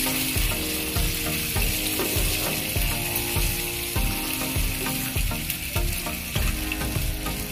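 Chicken pieces bubbling and sizzling in thin second-press coconut milk in a nonstick pan, with a plastic spoon stirring and scraping through them.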